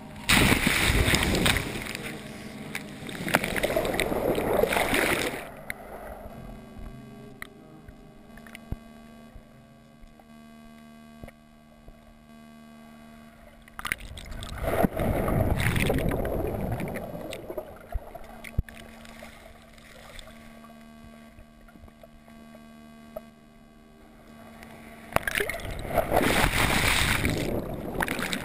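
Ocean waves breaking and washing over a camera at the water surface: three surges of rushing water roughly ten seconds apart, with quieter, muffled stretches between them carrying a faint steady hum.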